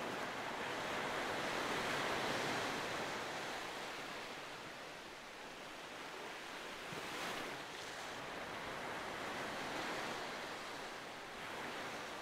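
Ocean surf: a steady rush of waves that swells and eases a few times.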